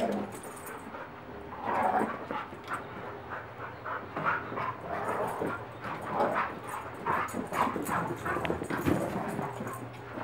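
Two dogs at rough play, chasing and wrestling, with a string of short dog vocal sounds coming every half second or so.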